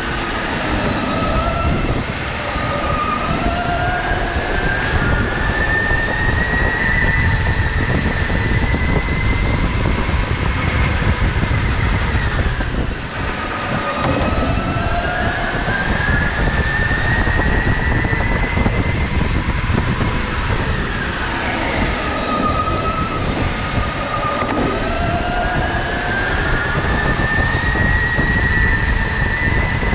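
Go-kart heard from the seat while lapping: a loud running rumble with a motor whine that climbs in pitch along the straights. The whine drops sharply twice, as the kart slows for corners.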